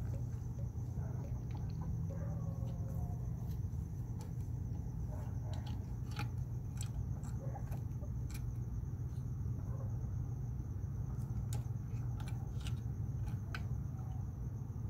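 Hens giving a few faint, soft clucks in the first few seconds, then their claws tapping and scratching on the wooden ladder and perch as they climb into the coop. A steady low hum and a constant thin high tone run underneath.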